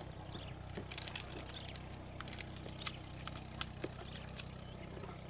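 Outdoor creekside ambience: a steady high-pitched insect drone, scattered faint bird chirps, and a few light clicks.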